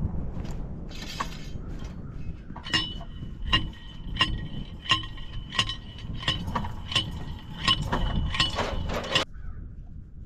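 A bundle of fence posts clinking together with each step as they are carried, a sharp ringing clink about every 0.7 seconds that stops abruptly near the end.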